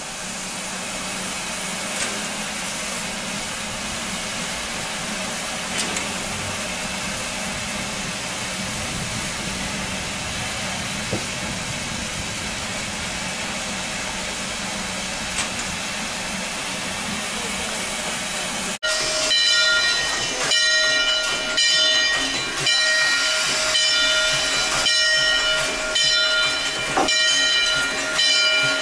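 Steam hissing steadily from the standing Canadian Pacific 2023 steam locomotive. About two-thirds of the way through, after a cut, a louder sound takes over: it pulses about once a second and carries several steady high tones.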